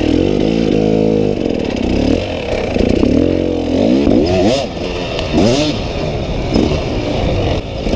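Dirt bike engine running under throttle, fairly steady for the first few seconds, then revved up and down repeatedly as the rider accelerates and lets off.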